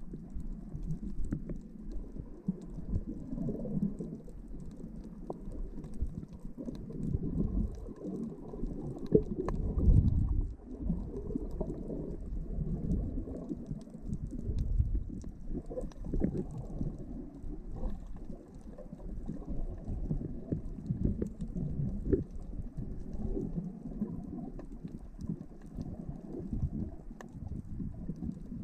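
Muffled underwater sound from a camera held below the surface: a low, shifting rumble of moving water with scattered faint clicks, swelling louder about ten seconds in.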